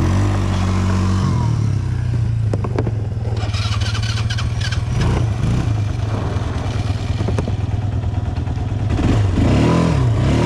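ATV quad bike engine running under throttle on a rough trail, revving up near the start and again near the end, with a few knocks and rattles from the bike over the bumps.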